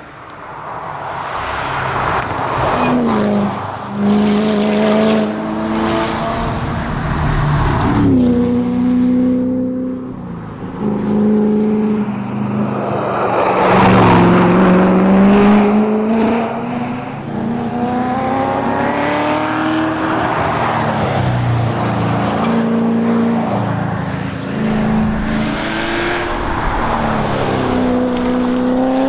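Chevrolet Corvette C7 Z06's supercharged V8 running hard at racing pace. The engine note climbs in pitch under acceleration and drops sharply at each gearshift, over and over, with some longer falls as it slows.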